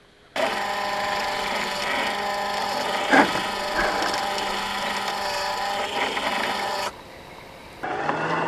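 Scale RC crawler's brushed 540 electric motor and gearbox whining at steady throttle, with a noisy grinding wash and a single sharp knock about three seconds in. The sound starts and stops abruptly.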